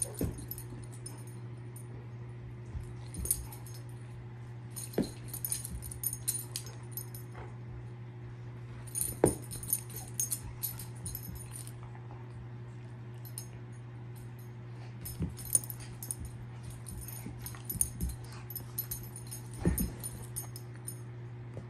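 Irish Setter puppy playing with a toy on carpet: repeated bursts of jingling from his collar tags as he shakes and spins, with a few soft knocks, over a steady low hum.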